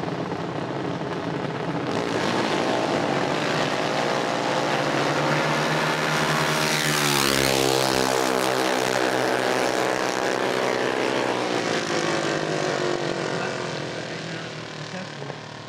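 Two junior dragsters' single-cylinder engines at full throttle down the strip. Their buzzing pitch drops sharply as they pass close by about seven to eight seconds in, then fades toward the end.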